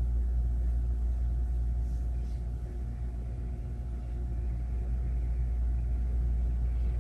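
Steady low rumble of room background noise, with a faint steady hum above it and no distinct events.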